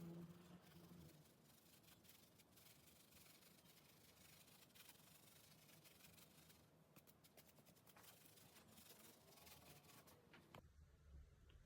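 Near silence with faint rubbing and scraping, dotted with many small clicks.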